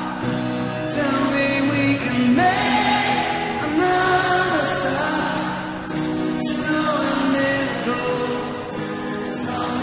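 A song playing: a sung vocal line of long held notes sliding from pitch to pitch, over steady backing music.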